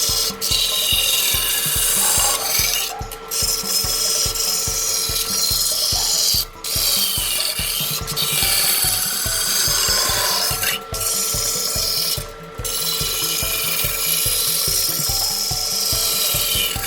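Wood lathe running while a tool is held against the spinning wood, giving a steady hissing cut over a constant motor whine. The cut breaks off briefly about five times as the tool is lifted.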